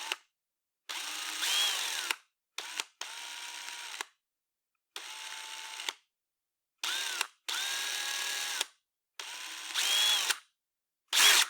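Electric power drill triggered in repeated bursts with silent gaps between them, from short blips to runs of about a second. The motor whine rises in pitch as it speeds up and drops as it winds down, and the loudest burst is a short one near the end.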